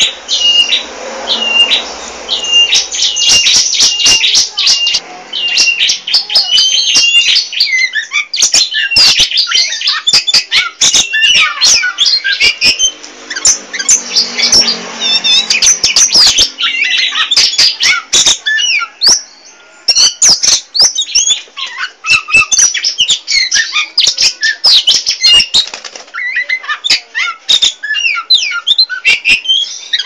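Oriental magpie-robin (kacer poci) in full, nonstop song: a rapid, varied stream of high chirps, whistles and harsh notes with sharp clicks scattered through. It opens with one hooked note repeated about twice a second.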